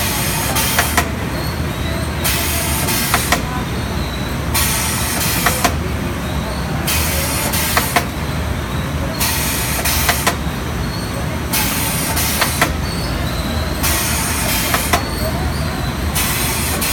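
STEEN ST 828 chicken drumstick deboning machine running. A hiss about a second long returns every two seconds or so, over a steady hum, with sharp clacks between.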